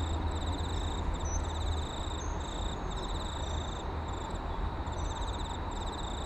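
Insects trilling in repeated high, rapidly pulsed bouts, over a steady low rumble.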